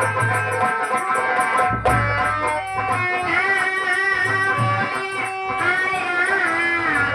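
Instrumental interlude of Bhojpuri folk music: a plucked-string lead melody over low drum beats, with no singing.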